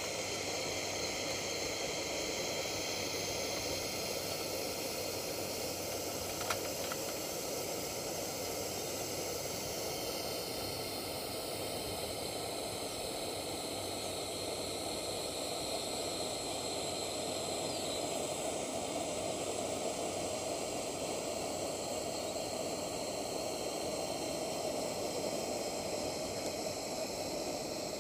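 Restored Coleman 238B pressure lantern burning with a steady hiss from its lit mantle burner. There is one brief click about six seconds in.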